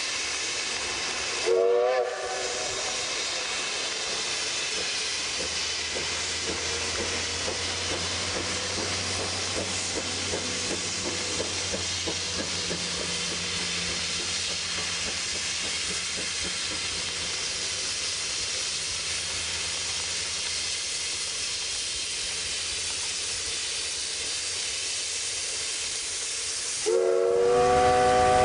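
Steam whistle of the C12 66 steam locomotive: a short blast about two seconds in, then a steady hiss with a low rumble from the working engine, and a longer, louder whistle blast near the end as it comes up with its cylinder drain cocks blowing steam.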